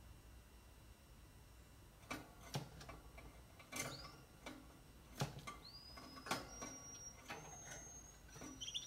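A young Russian canary hopping between the perches of a small wire cage: from about two seconds in, a series of about eight sharp taps as it lands. In the second half come a few thin, high, drawn-out whistles, one rising.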